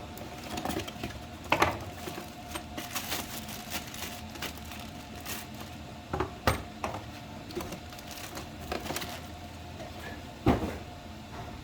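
Scattered light clicks and knocks of hardware and its packaging being handled, with one louder thump about ten and a half seconds in, over a faint steady hum.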